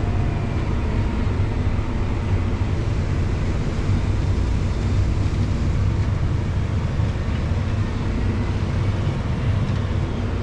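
Farm tractor's diesel engine running steadily while pulling a grain cart through a corn field, a constant low drone with no change in pace.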